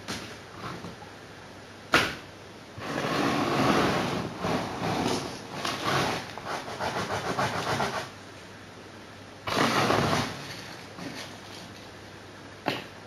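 Off-camera handling noises: a sharp knock, then several seconds of rustling and scraping with fast little clicks, another short scrape, and a click near the end.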